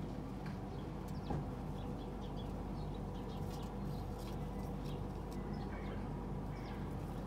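Small birds chirping, short high calls scattered throughout, over a steady low hum, with a single sharp click about a second in.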